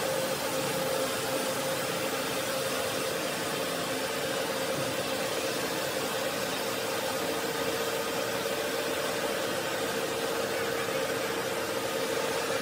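Steady machine noise in a stone-cutting works: an even hiss with a constant mid-pitched hum running through it.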